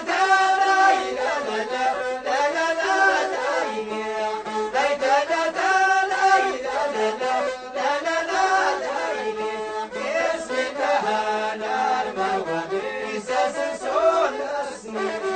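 Traditional Amazigh rways music: an ornamented melody line that slides between notes, playing continuously.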